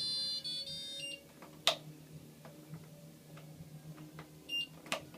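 Fisher & Paykel washing machine's electronic beeper sounding a tune of high beep notes, stopping about a second in. A sharp click follows, then a brief beep and another click near the end, over a low steady hum.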